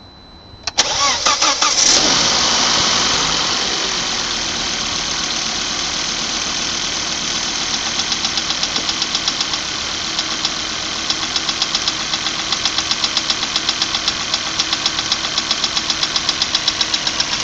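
Volvo B5234T3 2.3-litre turbo five-cylinder starting from cold about a second in, revving briefly high, then settling into idle. From about eight seconds on a rapid, evenly spaced knock comes through. It is a cold-engine knock from inside the engine, which the owner says fades once the engine warms up.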